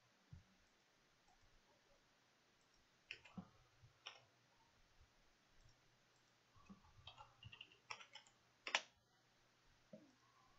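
Faint clicks of a computer mouse and keyboard: a few single clicks, then a quick run of key taps in the second half, the loudest click near the end.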